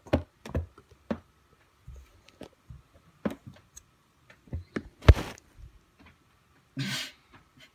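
A cat moving against a carpeted cat tree post close to the microphone: irregular soft knocks and taps, one heavier thump about five seconds in, and a short scratchy rustle near the end.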